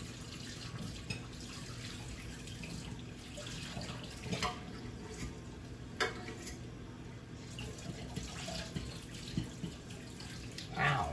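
Kitchen tap running into a sink while hands are washed, with a few short knocks.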